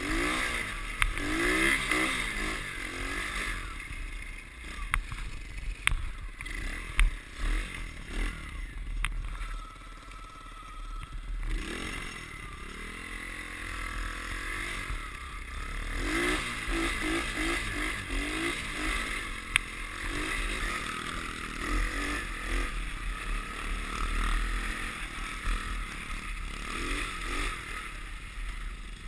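Small 110cc single-cylinder four-stroke pit-bike engine being ridden, its revs rising and falling repeatedly, with scattered clatters and knocks.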